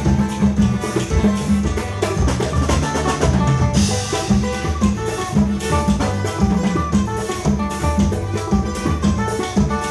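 Instrumental music with a plucked viola caipira over drum kit and bass, with a steady beat; a cymbal crash about four seconds in.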